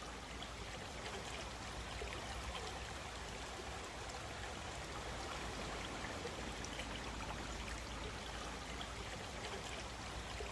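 Cascading woodland stream babbling over rocks: a steady rush and trickle of water.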